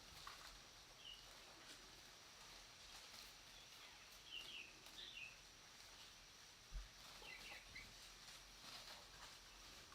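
Faint forest ambience with short, high bird chirps a few times, in small clusters. There is a steady faint high hum of insects and a single soft low thump about seven seconds in.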